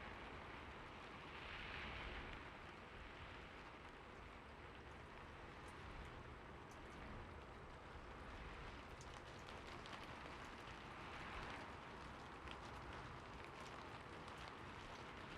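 Steady rain falling, with many small drops ticking against a surface and gentle swells in intensity every several seconds.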